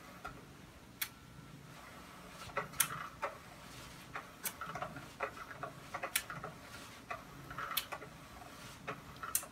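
Faint, sharp smacking clicks, one about every 1.7 s with softer ticks between, from a man kissing a cat at the bottom of each push-up.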